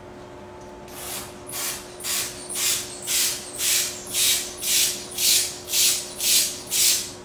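About twelve short puffs of air from a squeezed hand-held pump, evenly spaced about two a second, starting about a second in.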